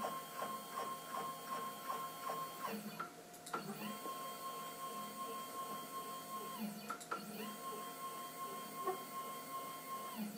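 Stepper motors driving the axes of a homemade CNC router's Proxxon KT150 cross table in a slide test. Each move starts with a whine that rises in pitch, holds steady, then falls away as the axis stops. There are three moves with short pauses and a few clicks between them.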